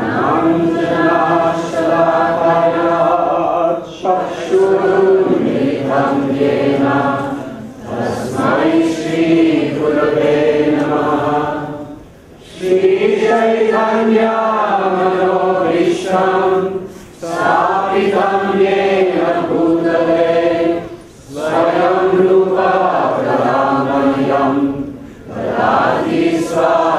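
Voices chanting devotional prayers together in melodic phrases about four seconds long, with short pauses between them.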